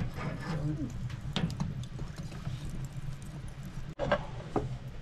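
Metal tongs clinking as glowing embers are lifted from a clay oven and dropped onto a tray: a few scattered clicks and light knocks over a low steady hum, with a small cluster of knocks near the end as the tray is set down.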